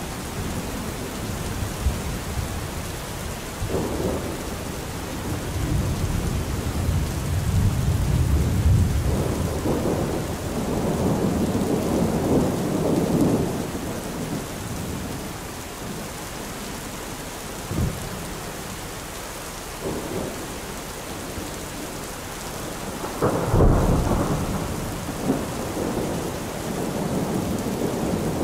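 Steady rain with thunder rolling in and fading several times, the biggest rolls about a third of the way in and again near the end, with a few sharp cracks.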